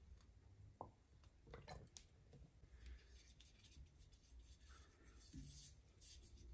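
Faint brushing and light scratching of a silicone pastry brush spreading cooking oil over the surface of a coated frying pan, with a few soft clicks early on the way.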